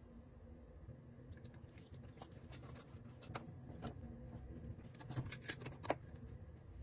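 Faint scattered clicks and taps of thin, dry pieces of pork jerky being handled and put into a glass clip-top jar with tongs, with a few sharper clicks about five seconds in as the jar is handled and its lid closed.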